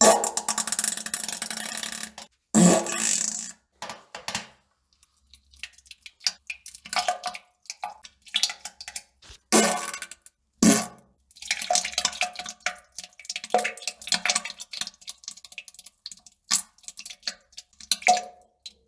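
Wet, sputtering fart and poop sounds. A long spluttering burst opens it, then scattered short wet crackles and pops, two sharp loud blasts about ten seconds in, and a long stretch of spluttering with a faint steady buzz running through it.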